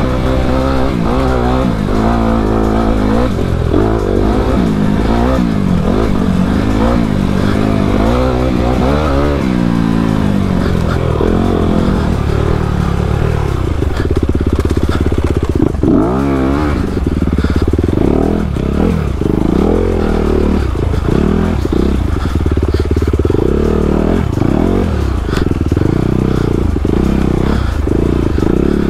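Honda CRF250RX's single-cylinder four-stroke engine under hard off-road riding, its revs rising and falling over and over with throttle and gear changes.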